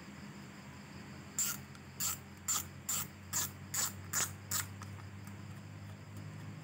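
Daiwa Bravia 2500R spinning reel's mechanism clicking as it is worked by hand: eight crisp, evenly spaced ratchet clicks, about two and a half a second, starting about a second and a half in, over a faint low hum.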